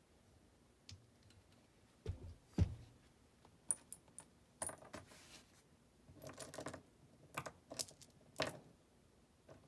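Scattered metallic clinks and taps from hand tools and small metal parts being handled while an ECM blower motor is worked on, with two duller knocks a couple of seconds in.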